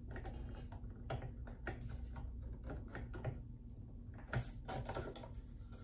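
Irregular faint clicks and rubbing of a plastic snap-fit end cover on a Brother XR9550 sewing machine as it is pried and worked loose by hand, its clips resisting.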